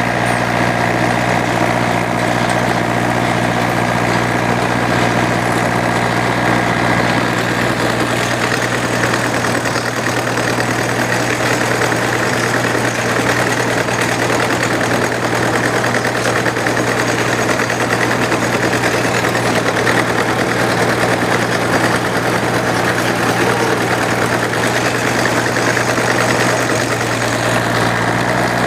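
An engine running steadily at a constant speed, with a rattling machinery noise over it that grows louder about eight seconds in.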